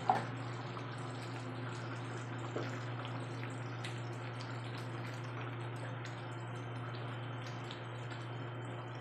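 Thick tomato-sauce chicken kaldereta simmering in a pan, a fine crackling, bubbling sound over a steady low hum. There are two sharper knocks, one at the very start and one about two and a half seconds in, as a wooden spoon stirs the pan.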